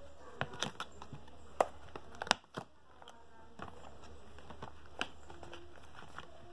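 Cardboard and thin plastic packaging handled by hand while a dome-shaped car air freshener is taken out of its box: scattered sharp clicks and crinkles, with two louder snaps about one and a half and two and a quarter seconds in.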